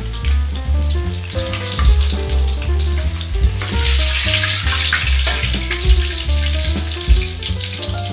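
Hot oil sizzling in a wok as fried chicken pieces are lifted out with a wire spider strainer and spatula, the sizzle swelling about halfway through. Background music with a heavy bass line plays under it.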